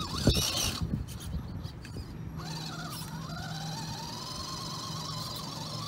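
A sharp knock, a few light clicks, then the small electric motor of an RC rock crawler whining steadily, its pitch slowly rising for about three seconds.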